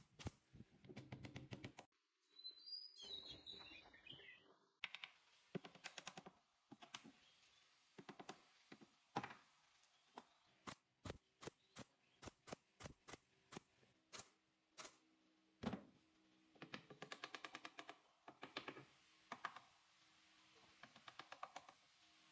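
Pneumatic nail gun firing nails into wooden slats: sharp clicks, one at a time or in quick runs of several a second, with short pauses between runs.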